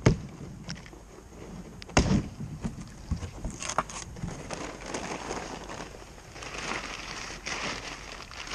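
Two knocks about two seconds apart, then a stretch of rustling and scraping: a cardboard shipping box being handled and opened.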